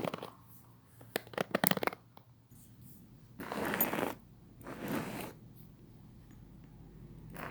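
Close-miked paper being handled: a quick run of sharp clicks in the first two seconds, then two rustling sweeps about a second apart.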